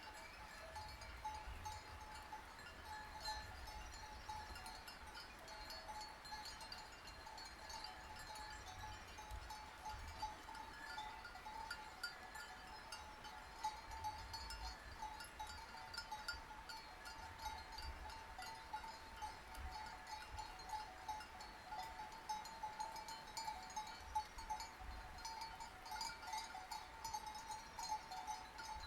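Bells worn by a grazing flock of sheep, clinking and jingling steadily and irregularly, with a sheep bleating now and then.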